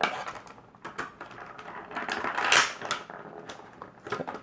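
Irregular clicks, taps and rustling of a hard plastic packaging tray as an action figure is worked loose from it, with a louder scraping rustle about two and a half seconds in.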